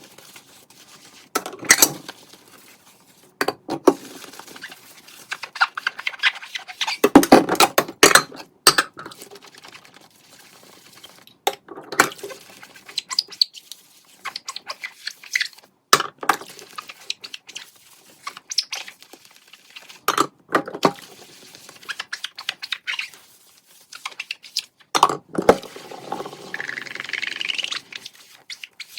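Kitchen dishes and utensils being handled and put away: scattered clinks and knocks, busiest about six to nine seconds in.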